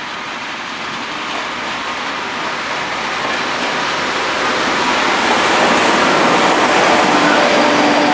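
ČD class 754 diesel-electric locomotive and its passenger coaches approaching and passing, a steady rumble of engine and wheels on rails that grows louder throughout and is loudest near the end as the coaches roll by.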